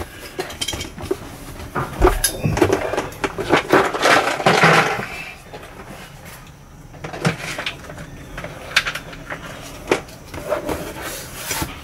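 Hands and tools at work: scattered clicks, knocks and rustling, with a denser scraping, hissy stretch about four to five seconds in.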